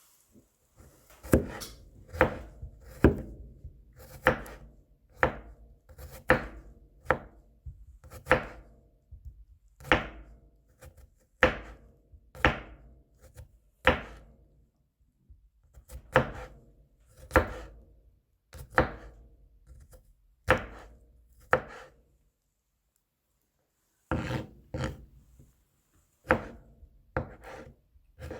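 Kitchen knife chopping garlic on a cutting board: sharp separate knife strikes about once a second. The strikes stop for a couple of seconds about three quarters of the way through, then come back quicker.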